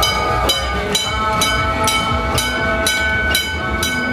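A bell struck steadily about twice a second as an electric streetcar rolls slowly past, with a steady whine and low rumble from the moving car underneath.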